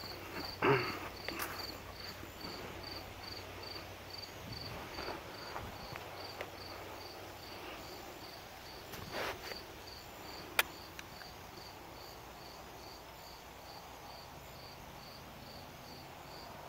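Crickets chirping in a steady, even rhythm of about two chirps a second, with a few knocks and clicks from handling: the loudest about a second in, and a sharp click about ten and a half seconds in.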